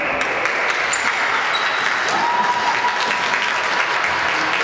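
Spectators clapping and cheering during a futsal match, a dense patter of claps. About two seconds in, a single high steady tone joins and holds for a couple of seconds.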